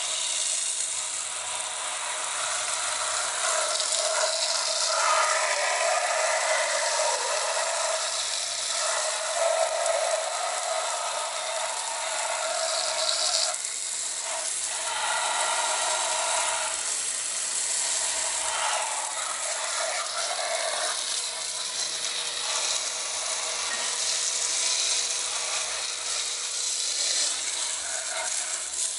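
A garden hose jet sprays water onto an amplifier's circuit board and metal chassis, making a steady hiss and spatter as it rinses off river mud.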